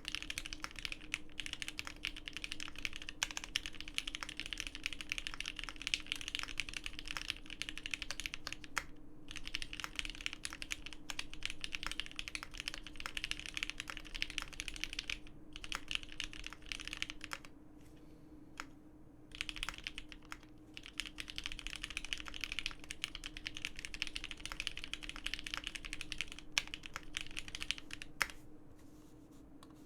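Steady typing on a GEON F1-8K mechanical keyboard with lubed vintage Cherry MX Black linear switches on 69 g springs, an FR4 gasket-mounted plate and Cherry G81 keycaps: a fast run of key clacks, broken by short pauses about a third of the way in, midway and near the end. A faint steady hum runs underneath.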